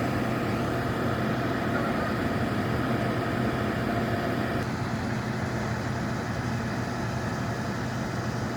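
Bucket truck's engine running steadily at idle, a low, even hum.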